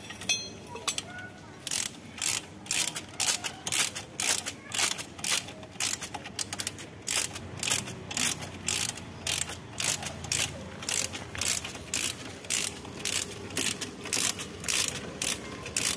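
Ratchet wrench being worked back and forth, a short rasp of pawl clicks on each stroke at about two strokes a second, as the ball-joint bolt on the front lower control arm is run in and tightened.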